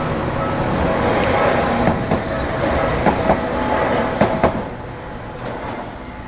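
A Tokyu Setagaya Line 300 series two-car tram passes over a level crossing, its wheels clacking over the rail joints in three pairs, with the crossing bell ringing steadily. The train noise fades after about four and a half seconds.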